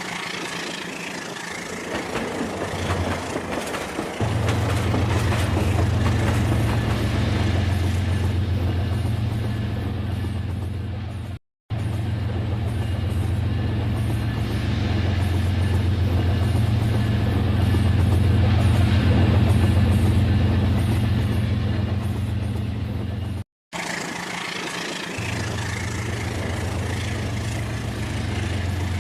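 Rail King battery-powered remote-control toy train running, a steady motor hum with a rattly noise over it. The sound drops out briefly twice, about a third and two thirds of the way through.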